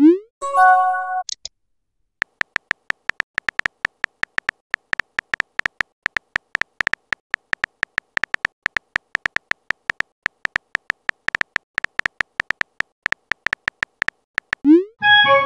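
Phone keyboard key-tap sounds, short high ticks coming fast and unevenly as a text message is typed. At the start and again near the end a message-sent sound plays: a rising swoop, then a short chime of several notes.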